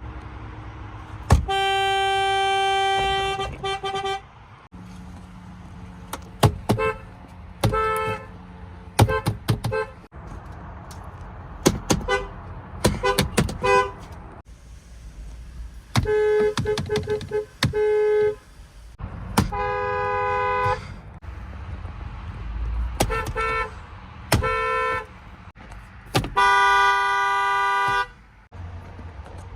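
BMW car horns honking again and again: a few held blasts of one and a half to two seconds, about a second in, around the middle and near the end, between clusters of quick short taps.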